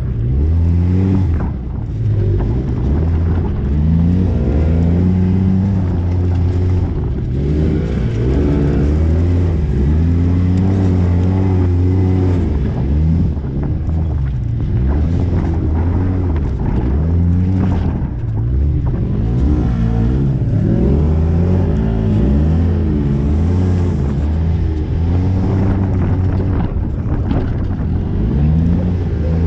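Polaris RZR S side-by-side's engine revving up and down continuously as it is driven hard along trails, the pitch rising and falling every second or two.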